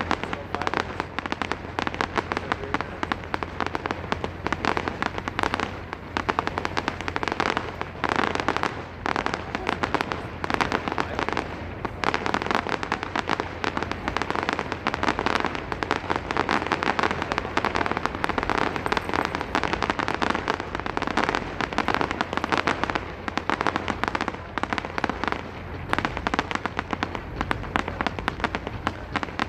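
Fireworks display going off in a dense, continuous barrage of bangs and crackles with no pause, echoing off surrounding buildings.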